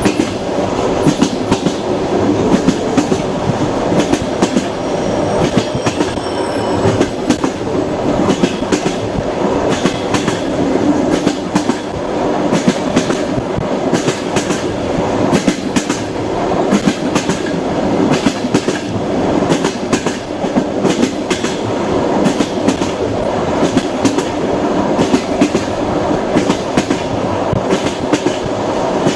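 Passenger train running along the track, heard from inside a carriage: a steady rumble with the clickety-clack of the wheels knocking over rail joints. A faint high wheel squeal comes in briefly about five seconds in.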